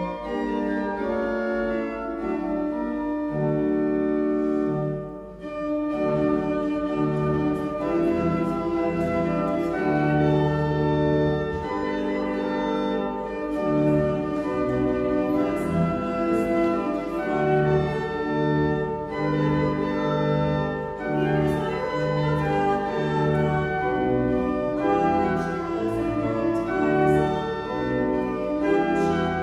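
Church organ playing sustained chords and a moving melody, with a brief drop in loudness about five seconds in.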